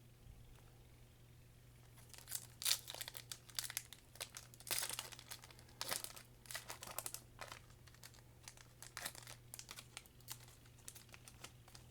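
Pokémon booster pack's foil wrapper crinkling and tearing open. A string of crackles starts about two seconds in and is loudest near three and five seconds, then thins to lighter crinkling.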